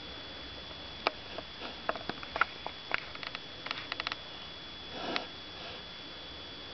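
Tabby cat pressing its throat against the edge of a wooden drawer, breathing in short, strained snuffles with scattered small clicks. One louder wheezing snort comes about five seconds in.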